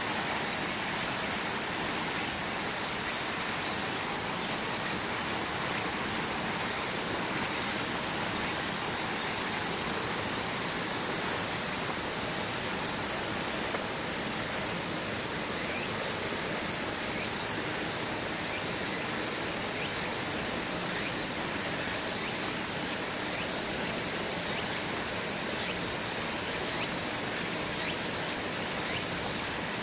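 Dense cicada chorus: a steady, shrill high hiss, with a faster pulsing trill beneath it that comes and goes.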